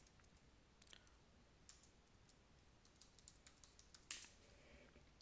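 Faint keystrokes on a computer keyboard as a password is typed: a few scattered taps, then a quick run of about eight, and one louder click just after four seconds in.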